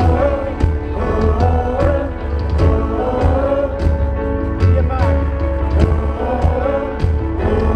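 Live pop song through a concert sound system: a male voice sings into a handheld microphone over a steady drum beat and heavy bass.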